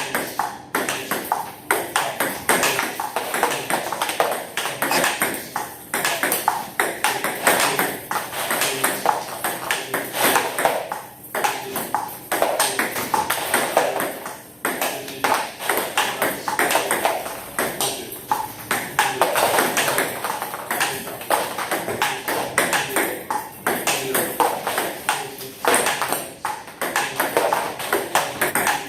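Table tennis balls being struck with a paddle and bouncing off the table in quick succession, several hits a second, as in multi-ball drilling.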